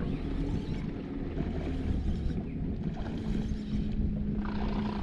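A boat motor running steadily: a low rumble with a steady hum.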